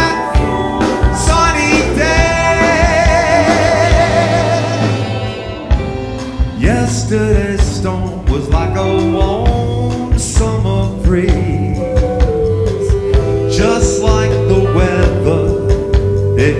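Live band playing a slow pop-soul song: electric guitar, drums and saxophone behind a male lead singer, with female backing singers.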